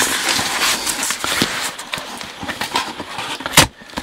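A small cardboard box being opened by hand: the corrugated flap scrapes and crinkles in a run of small clicks, with one sharp crack about three and a half seconds in as the lid tears free.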